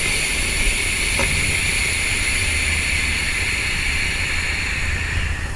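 A long draw on a vape: air hisses steadily through the rebuildable atomizer's airflow, opened to its widest setting, and cuts off near the end.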